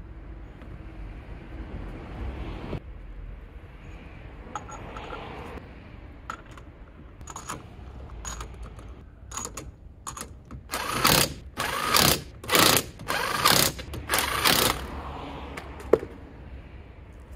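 Impact wrench on wheel bolts, run in about six short bursts a little past the middle, with scattered clicks and clanks of tools before them and one sharp click near the end.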